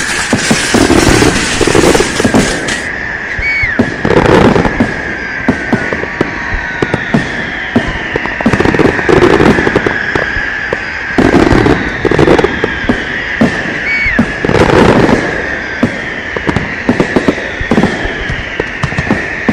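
Firecrackers and fireworks going off in a dense, irregular string of sharp bangs and pops, with a steady high tone and a falling whine repeating every few seconds underneath.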